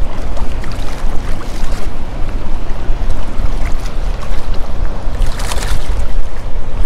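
Wind rumbling on the microphone over lapping shallow water. About five seconds in, a short splash as a small hooked flounder thrashes at the surface.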